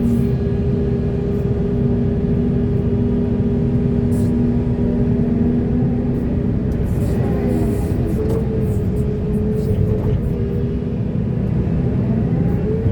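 Large hydraulic excavator working: its diesel engine runs under steady load with a constant whine over the engine noise. Around the middle the whine shifts and glides in pitch as the hydraulics take up a new movement.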